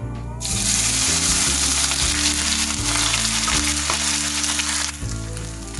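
Grated fresh turmeric dropped into hot ghee, sizzling loudly from about half a second in and settling to a quieter sizzle near the end. Background music underneath.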